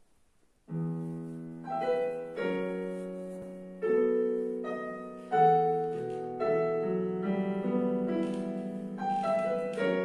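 Digital piano played slowly: chords struck about once a second, each left to ring and fade, starting about a second in.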